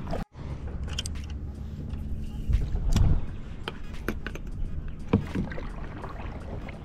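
Pelican Catch 100 fishing kayak being paddled, with scattered sharp knocks and splashes of the paddle. The loudest stretch comes a little before halfway. Under it runs a steady low rumble of wind on the microphone.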